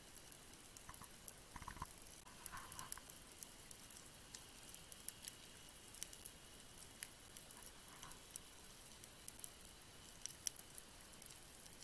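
Faint underwater crackle of scattered, irregular sharp clicks, like snapping shrimp on a reef, over a faint steady high hum.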